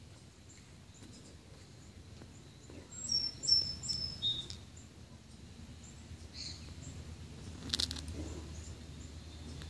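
A bird chirping: a quick series of short, high, thin notes about three seconds in, over low steady background noise. A sharp click follows near the end.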